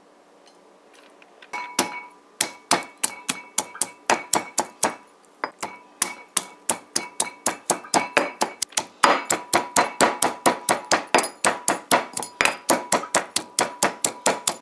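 Pestle pounding garlic cloves and hot peppers in a stone mortar: sharp, even strikes at about three a second, each with a short ring from the stone bowl. The pounding starts about a second and a half in.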